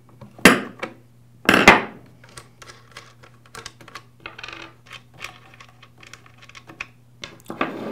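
A steel chainsaw scrench and the side-cover nuts being set down on a wooden workbench: two sharp metallic clanks about half a second and a second and a half in, then a run of small light clicks and taps from handling the saw's side cover.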